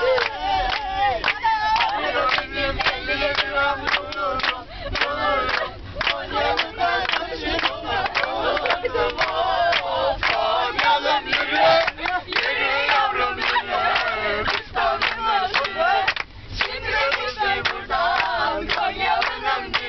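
A busload of students singing together loudly, many voices at once in a group song or chant.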